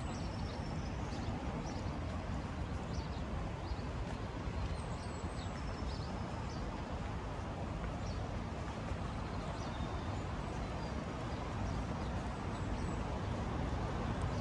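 Outdoor street ambience on a walk through a town: a steady low rumble with a few short high-pitched chirps in the first half.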